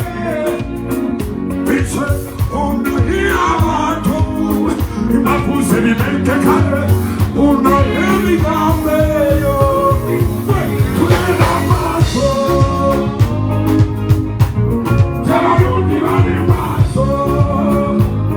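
Live band music played over a PA at a sound check: a steady drum and bass groove with a sung vocal line over it.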